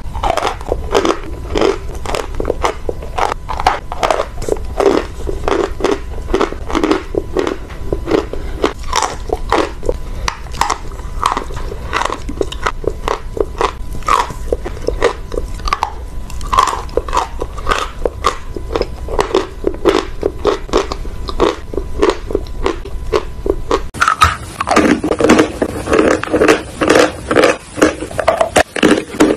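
Close-up crunching of dry edible chalk being bitten and chewed, a dense run of sharp crisp crunches several a second. About 24 s in it changes to heavier, louder bites into a large chalk block.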